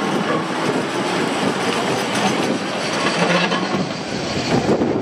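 Blackpool Corporation electric tram No.31 running past at close range on street track: a steady noise of its wheels on the rails and its running gear.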